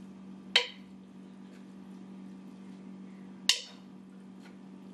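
A stirring utensil knocks twice against the side of a pot of cooked spaghetti, two sharp clinks about three seconds apart.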